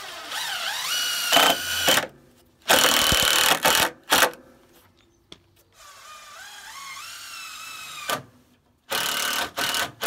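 Power drill driving screws into Trex composite decking boards. The motor whine rises in pitch as it speeds up, then comes in short loud full-speed bursts as each screw seats, twice over.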